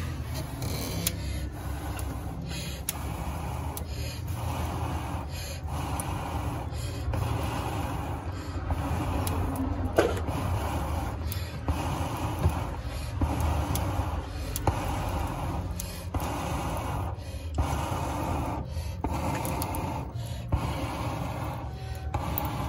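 Rhythmic whooshes of air being pushed onto the charcoal in a charcoal stove, about one every second and a half, to get the coals burning, over a steady low rumble.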